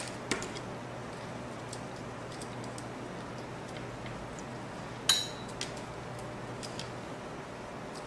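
Light clicks and taps of fingers and fiber cable on a plastic fiber cable tray as the cable is pressed into its fixtures. The loudest is one sharp, slightly ringing click about five seconds in. A steady low hum runs underneath.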